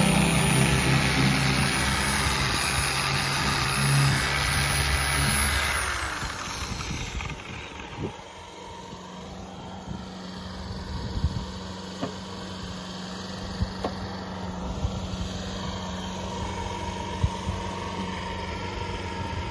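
Electric rotary polisher running with its pad on aluminium aircraft skin, a steady motor whine that winds down about six seconds in. After that come only a faint hum and a few light clicks.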